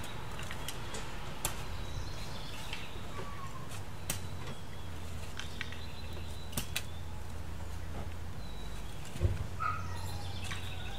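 Steel shovels scraping and cutting into a pile of loose loam, a few sharp scrapes a couple of seconds apart, the loudest about nine seconds in. A bird chirps now and then over a low steady rumble.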